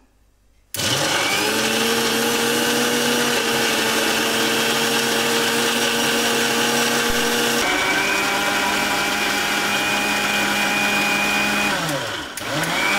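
Electric kitchen mixer grinder (mixie) blending watermelon pieces with sugar and ice water. The motor starts about a second in, rising quickly to a steady whine, shifts to a different pitch about two-thirds of the way through, then briefly winds down and spins back up near the end.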